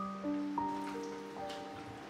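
Background music: gentle keyboard notes struck one after another, each ringing on and overlapping the next.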